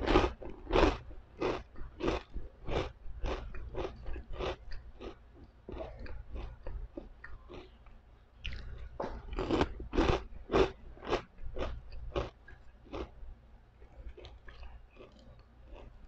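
Close-up crunching chews of pork chicharon (fried pork rinds), about one to two crunches a second, fading as the mouthful breaks down. The crunching comes back loud about nine seconds in with a fresh mouthful, then tapers off again near the end.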